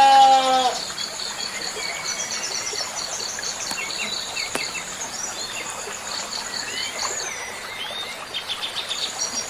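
A goat's bleat tails off in the first second. Small birds then chirp in short scattered calls over a steady, high-pitched insect trill and a constant background hiss.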